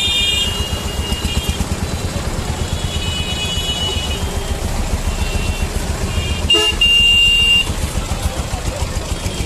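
Street traffic with a steady low rumble and repeated short horn toots. The loudest horn is held for nearly a second about seven seconds in.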